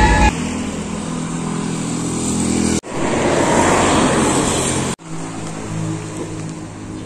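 Outdoor ambience in three short cut-together pieces, with a steady low engine hum and, in the middle piece, a louder rushing noise.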